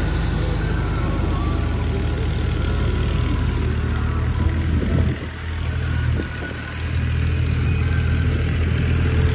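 Tractor diesel engine running steadily, a low even chug. Its level dips for about a second and a half around the middle, then picks up again.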